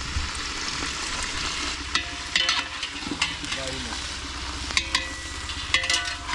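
Onions, shallots and garlic sizzling in a pot while a large spoon stirs them. The spoon scrapes and clinks against the pot several times.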